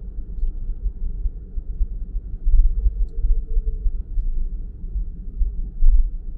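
Low, uneven rumble of a car being driven along a road, its loudness rising and falling.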